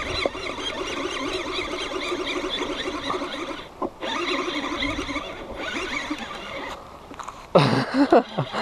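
Baitcasting reel being cranked to bring in a hooked bass, its gears whirring with a wavering, squeaky pitch that follows the speed of the handle. The whirring is dropped for a moment about four seconds in, and a few short, louder sliding sounds come near the end.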